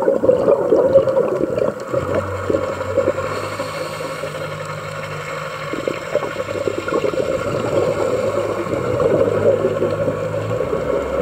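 Underwater noise picked up by a diving camera: a dense crackling and gurgling of water and bubbles. A low steady hum comes in about two seconds in and stops near the end.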